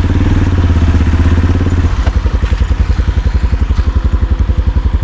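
Vehicle engine running, a low steady hum that changes about two seconds in to a rapid, even pulsing throb.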